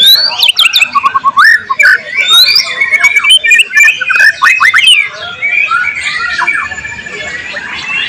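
White-rumped shama (murai batu) singing a loud, varied song of quick whistles, rising and falling sweeps and rapid trills. It grows softer from about five seconds in.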